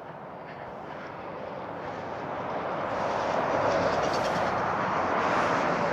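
Road vehicle noise, tyres and engine together with no clear pitch, growing steadily louder over the first few seconds as a vehicle approaches, then holding.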